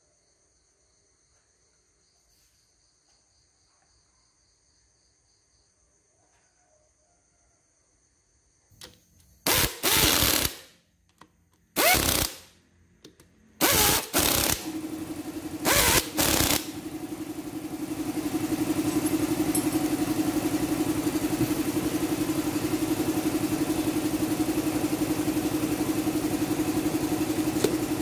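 A power screwdriver running in about four short bursts, driving in the bolts of a Honda motorbike engine's side crankcase cover, starting about nine seconds in. A steady machine hum at one fixed pitch sets in partway through the bursts and runs on under them. Before the bursts there is only faint insect chirring.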